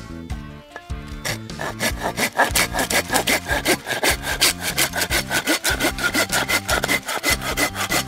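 Takagi Shark Saw 'Tanoshi-bi' 180 mm curved-blade folding pruning saw cutting through a piece of split firewood, in fast, even back-and-forth strokes that start about a second in. The saw bites easily.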